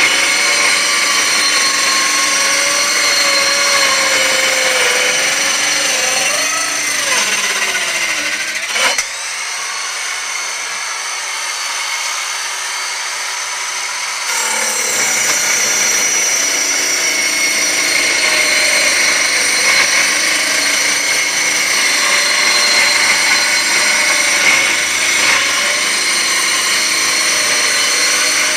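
Portable 5-inch circular saw ripping wood with the grain: a continuous, loud motor whine whose pitch wavers under load, sagging and falling between about six and nine seconds in. The sound then thins and drops for about five seconds before the full cutting sound returns.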